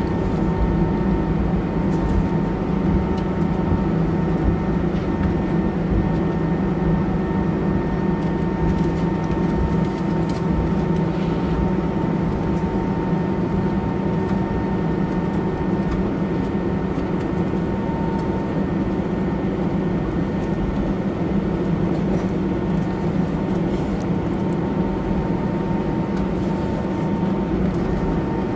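Steady cabin noise of an Airbus airliner taxiing on its jet engines, heard inside the cabin: a low, even rumble with a thin steady whine over it.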